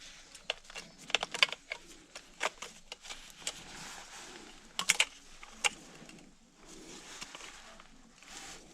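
Irregular sharp clicks and light taps of hand tools and small hardware being handled, several quick clusters with short pauses between.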